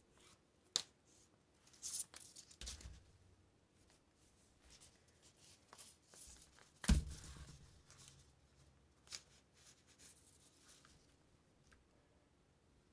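Thread being pulled through punched holes in leather while hand saddle-stitching: faint, scattered short rasps and rustles of thread and handled leather. One louder thump about seven seconds in.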